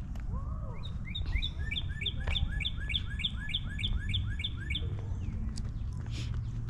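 A songbird singing a rapid series of repeated, identical notes, about three a second, for roughly four seconds, over a steady low background rumble.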